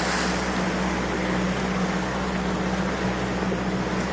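Boat engine running under way with a steady, even hum, over a constant hiss of water and wind.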